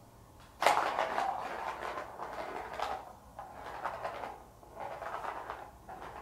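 A large Persian cat knocking and scuffing against a wooden cat house as she shifts about and squeezes into one of its doorways: a sudden knock just over half a second in, then irregular scraping and bumping on the wood.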